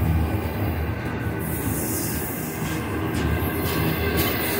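Slow-moving Union Pacific intermodal freight train, flatcars carrying semi-trailers, rolling past with a steady low rumble and rail noise.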